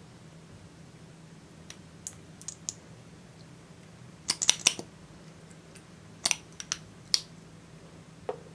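Short sharp plastic clicks and taps from a liquid lipstick tube being handled and opened, its cap and applicator wand knocking against the tube. A quick cluster of the loudest clicks comes about halfway through, with scattered single clicks before and after.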